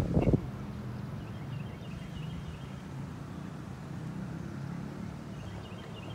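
Steady low hum of outdoor traffic, with birds chirping faintly twice. A brief gust of wind on the microphone at the very start.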